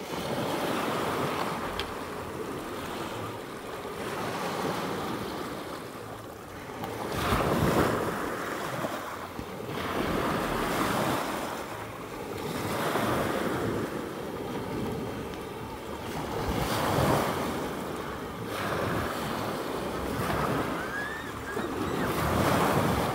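Sea surf washing onto a beach, swelling and falling away every few seconds, with wind buffeting the microphone.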